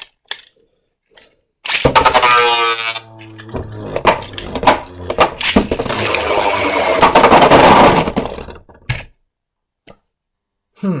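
Two Beyblade Burst tops, a 3D-printed Hero Samuraizor and a Super Hyperion, ripped from their launchers with a short whir, then spinning and clattering against each other in a plastic stadium with sharp hits for about six seconds until the clatter stops about nine seconds in.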